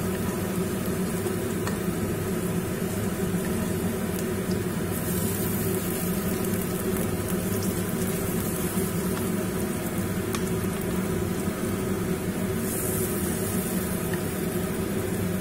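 Oil sizzling steadily around mustard-flower fritters shallow-frying in a frying pan as they are turned over one by one. There are a few light clicks of the metal spoon against the pan, and the hiss grows louder for a moment about five seconds in and again near the end.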